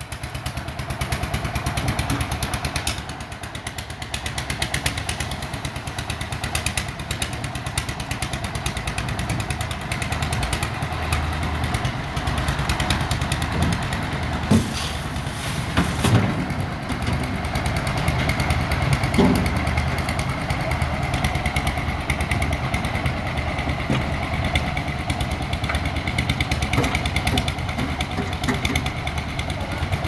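A concrete mixer's engine running steadily with a fast, even beat. A few sharp knocks come about halfway through.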